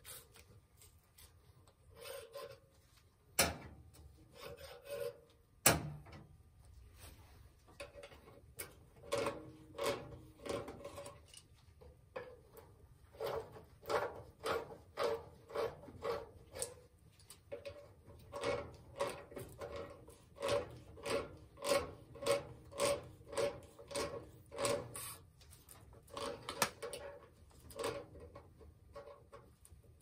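Brass fittings of a steam boiler's sight-glass water gauge being worked loose by hand to take out a cracked gauge glass: evenly repeated rubbing strokes, about one and a half a second, after two sharp clicks near the start.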